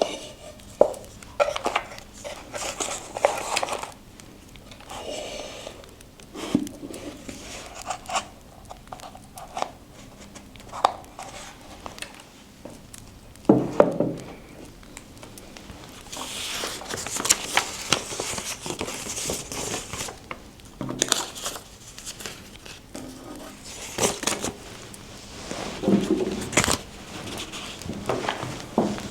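Paper being handled in scrapbooking: rustling and crinkling, with a longer tearing or rubbing rustle midway. Irregular light taps and knocks of craft tools are set down on a table.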